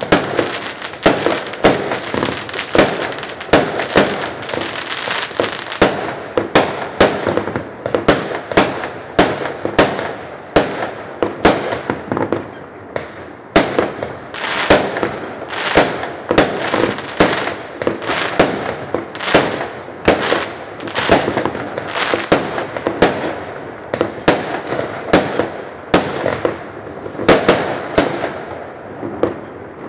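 Fireworks going off: a rapid, continuous series of sharp bangs from aerial shells bursting, about two a second, over a steady wash of further explosions.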